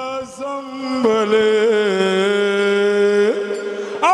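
A singing voice holds one long, steady note with a slight waver, then slides up in pitch near the end: the sung opening of a song.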